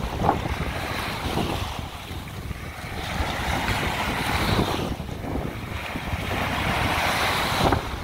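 Small waves breaking and washing up on a sandy beach, with wind buffeting the microphone. Two swells of surf rise in the second half, the last cutting off sharply near the end.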